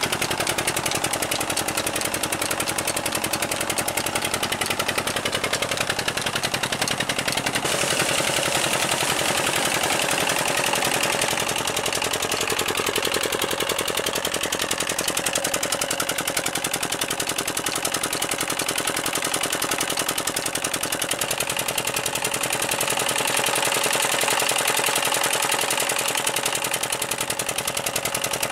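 A 23 hp Petter diesel engine running steadily with a rapid, even exhaust beat, driving a tube-well pump by belt. Water gushes from the pump's outlet pipe into the tank.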